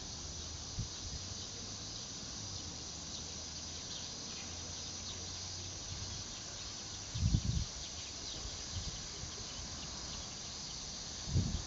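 Steady high-pitched chorus of summer insects in the trees, with a brief low rumble about seven seconds in and another near the end.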